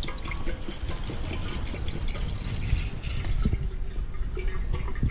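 Water poured from a plastic bottle into an enamel kettle, splashing and gurgling as the kettle fills, over a low rumble.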